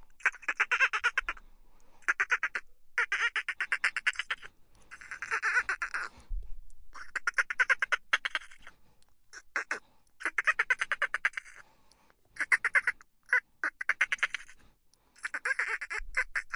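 Dolphin chatter: about a dozen bursts of rapid clicking pulses, each lasting up to about a second and a half, with short gaps between them.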